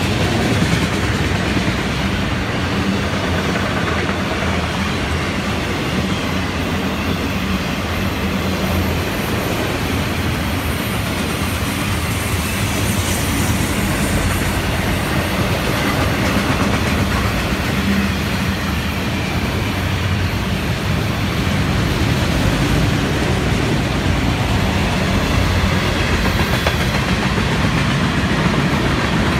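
Freight train cars, autoracks then bulkhead flatcars, rolling past close by: steel wheels on the rails with a steady, loud rumble and rattle.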